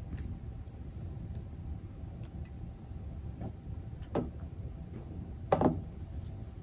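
Hand tools handled on a wooden tabletop during wire crimping: a few light clicks of the metal crimping tool, then two knocks as tools are set down and picked up, about four and five and a half seconds in, the second the loudest.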